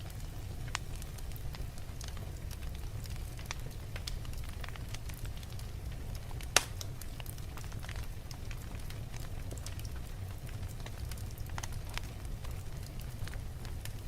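Wood fire in a fireplace crackling, with a steady low rumble under scattered pops and one loud sharp crack about halfway through.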